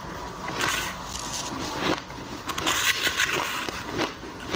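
Crushed ice being chewed close to a clip-on microphone: irregular crisp crunches that come in clusters, strongest about half a second in and again around three seconds in.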